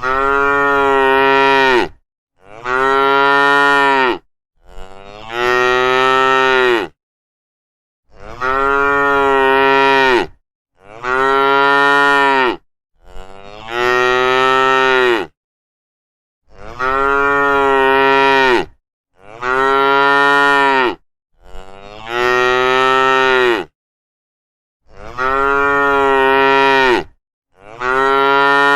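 Cows mooing: a string of loud, drawn-out moos of about two seconds each, one after another with short silent gaps, about eleven in all.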